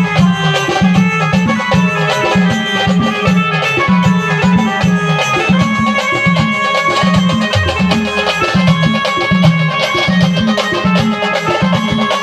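A band playing a melody over a steady, driving drum rhythm.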